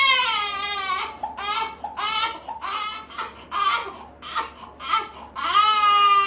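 Newborn baby crying in a string of high-pitched wails: a long cry at the start, a run of short cries, then another long wail near the end.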